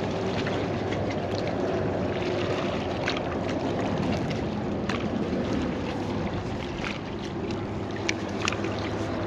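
Steady wind and water noise along a seawall, with a faint low steady hum underneath and a few light clicks scattered through.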